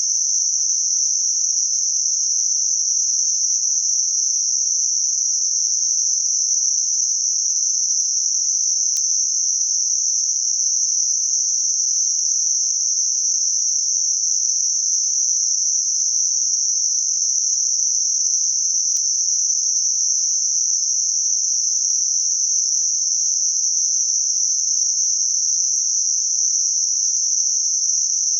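Synthetic 6 kHz Gaussian narrow-band noise: a steady, unchanging high-pitched hiss with no low sound in it, generated as a masking sound for high-frequency tinnitus.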